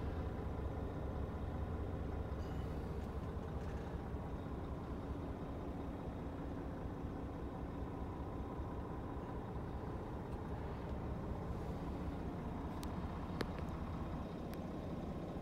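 Scania R450 truck's 13-litre straight-six diesel idling steadily, heard from inside the cab. A few light clicks near the end.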